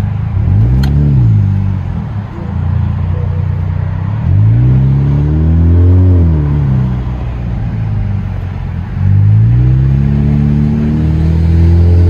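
2011 Hyundai Sonata 2.0T's turbocharged four-cylinder, its mufflers deleted, accelerating: a short rise and fall in revs about half a second in, a longer pull from about four seconds that drops back near seven seconds, and another rising pull from about nine seconds.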